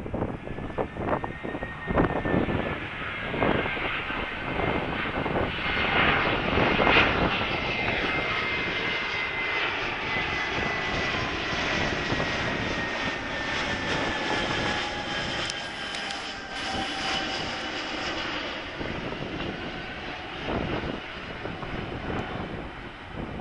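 An Asiana Airlines Airbus A321's jet engines as it flies over on final approach with its landing gear down. The steady roar builds to its loudest about seven seconds in, with high whining tones that slowly fall in pitch as the plane passes. Gusts of wind buffet the microphone now and then.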